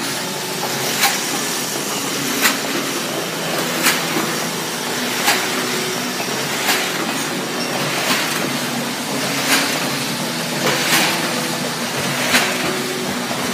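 Iberica DG 60 F sheet-fed die-cutting machine running, a steady mechanical clatter with a sharp clack about every one and a half seconds as it cycles through printed sheets.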